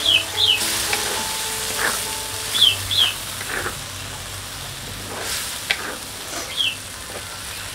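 Golden apple snails in a chilli-tomato paste sizzling as they are stir-fried in a wok, with the spatula scraping and knocking against the pan now and then.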